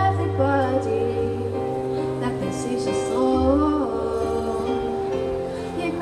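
A woman singing a song over instrumental accompaniment, holding long sung notes over steady bass and chords.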